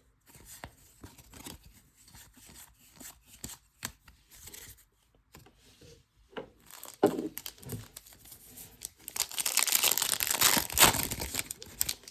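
Light rustling and clicking of trading cards being handled, then a foil trading card pack torn open, a loud crinkly tearing lasting a couple of seconds near the end.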